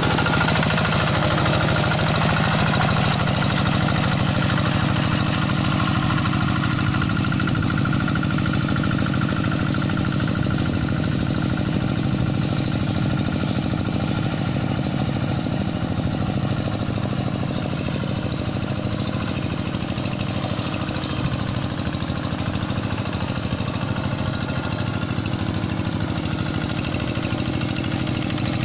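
Two-wheel hand tractor's single-cylinder diesel engine chugging steadily under working load as it drags its cage wheels through a flooded rice paddy, growing slightly fainter as it moves away.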